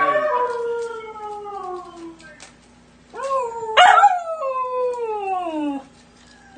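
Siberian husky puppy howling: a long howl that slides down in pitch and fades, then after a short pause a second howl that jumps up briefly and slides down again.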